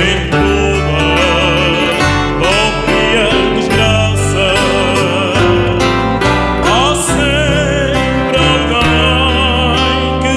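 A man singing with heavy vibrato, accompanied by an ensemble of plucked acoustic guitars.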